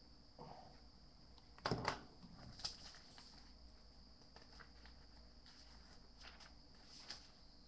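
Handling noises at a table: a few sharp knocks and rustles, the loudest about two seconds in, with fainter clicks later, over a steady high-pitched whine.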